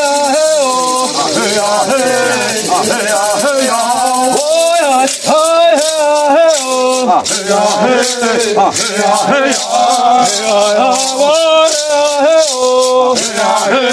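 Voices singing a ritual chant over shaken maracas. The maraca rattling comes in strongly as an even rhythm about five seconds in.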